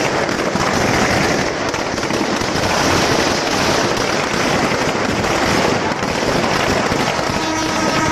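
Firecrackers inside a burning Dussehra Ravana effigy going off in a dense, unbroken crackle of rapid pops.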